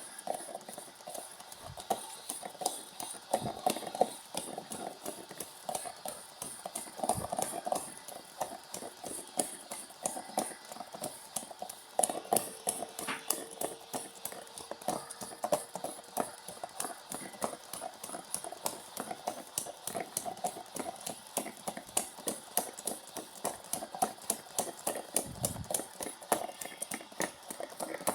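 LG washing machine running its heavy-load wash cycle, with a rapid, rhythmic clacking and knocking as the drum works the load.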